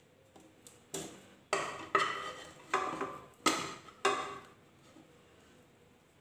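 Spatula scraping and knocking against a non-stick kadai, about six quick strokes in a row, as thick cooked milk-powder paste is scraped out of the pan.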